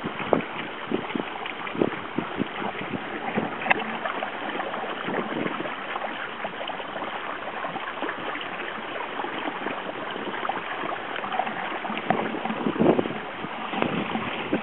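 Water rushing and splashing along the hull and outrigger float of a small sailing proa under way, with frequent small irregular slaps against the hulls.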